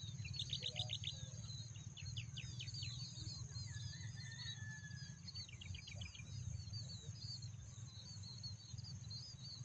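Birds chirping, with a few quick runs of falling notes, over a steady high insect drone and a low rumble.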